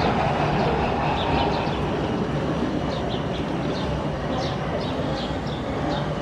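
Steady murmur of a crowd, with many short, high-pitched bird chirps over it. The chirps come thicker from about halfway through.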